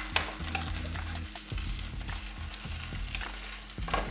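Egg mixture sizzling in a hot rectangular tamagoyaki pan as the half-set omelette is rolled with a slotted spatula, with a few light taps and scrapes of the spatula against the pan.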